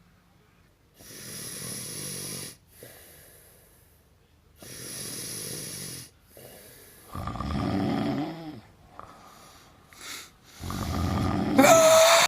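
A person snoring. It starts as hissy in-and-out breaths, then builds into louder, rougher snores, and the last and loudest one ends in a rising pitched note.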